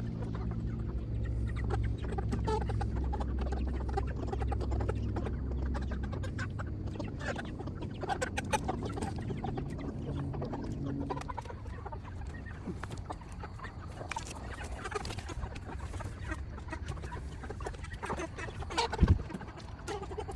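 Broiler chickens clucking while they are caught and loaded into crates, with scattered knocks and handling noise and one sharp, loud knock near the end. A low motor hum runs underneath for the first half and then fades out.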